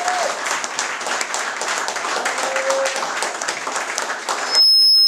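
A congregation applauding, with a brief cheer or two, until a loud, steady high-pitched beep cuts in about four and a half seconds in and replaces it.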